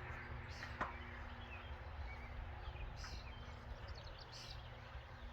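Faint outdoor ambience: a steady low rumble with a few faint bird chirps, and a single sharp click just under a second in.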